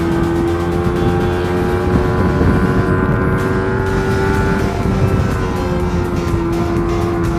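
Suzuki GSX-R150's single-cylinder engine running at steady cruising revs while riding at speed, its pitch creeping up slightly and then easing back, with road and wind rumble. Background music plays along with it.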